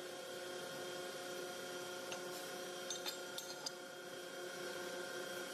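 Steady hum of a running machine motor, several fixed tones held without change, with a few light, sharp clicks of small metal parts about two to three and a half seconds in.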